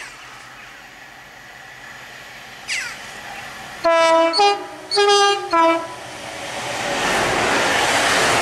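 Two-tone horn of a DRS Class 68 diesel locomotive, sounded about four seconds in as four short blasts alternating between two pitches. The double-headed Class 68s then run in, their noise growing steadily louder.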